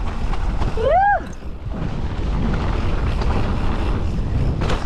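Wind buffeting the microphone in a steady low rumble, with one short voice cry that rises and falls in pitch about a second in.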